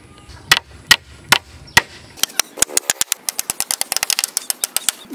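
Hammer blows on bamboo poles: sharp strikes about two and a half a second. About two seconds in they give way to quicker taps, several a second.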